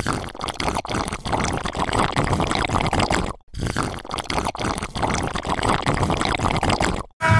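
Iced drink sucked noisily through a straw: a continuous gurgling, crackling slurp, broken by a brief gap about three and a half seconds in.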